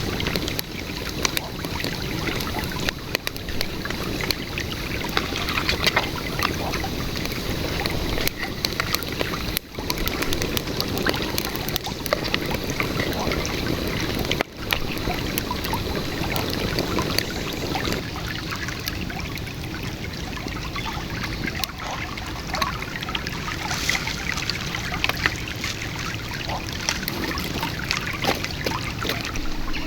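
Shallow river water running steadily over stones, with many small clicks and knocks on top. The sound drops out briefly twice.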